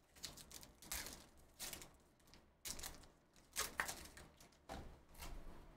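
Foil wrapper of a Panini Illusions football card pack crinkling as it is torn open by hand, in several short, irregular rustles.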